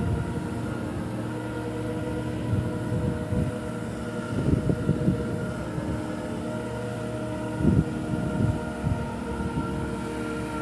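Large travelift boat hoist running steadily: a diesel and hydraulic drone with several fixed whining tones, broken by a few irregular low rumbles.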